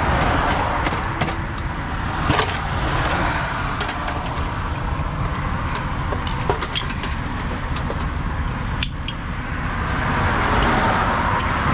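Steady rush of highway traffic going by, with scattered light metallic clicks and clinks, and the traffic swelling louder near the end.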